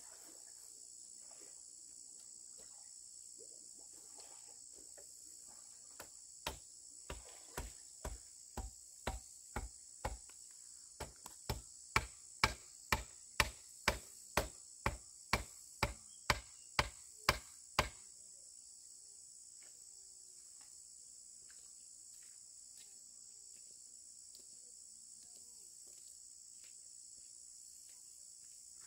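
Steady high-pitched insect chorus, with a run of about two dozen sharp blows of a hand tool, about two a second. The blows start several seconds in, pause briefly in the middle and stop a little past halfway.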